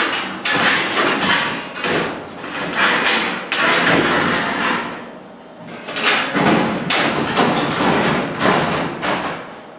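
Irregular hammering and knocking in ceiling work: a string of sharp blows at uneven spacing, with a brief lull about halfway through.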